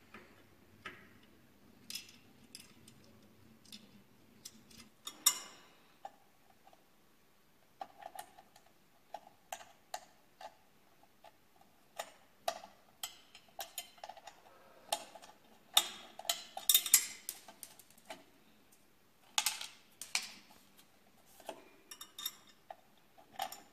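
Air bike display console and its mounting bracket being fitted by hand onto the handlebar stem: irregular light clicks, taps and knocks of plastic and metal parts, busiest around the middle.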